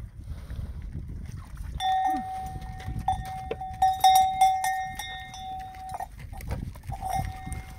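Metal cowbell on a cow's neck clanking and ringing as the cattle walk away from the water trough. One ringing note, struck again and again from about two seconds in to about six seconds, then again near the end.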